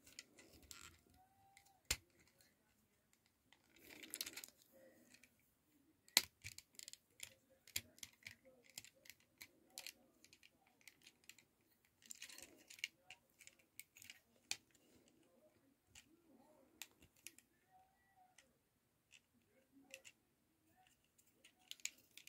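Plastic parts of a Transformers Studio Series 86 Brawn action figure clicking and knocking faintly as it is handled and pushed into its transformation, a wheel being worked into place. Sparse single clicks, the sharpest about 2 and 6 seconds in, in otherwise near silence.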